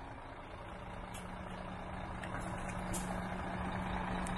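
Scania 124C 420 dump truck's diesel engine running steadily at idle, a low hum with a steady tone that grows gradually louder.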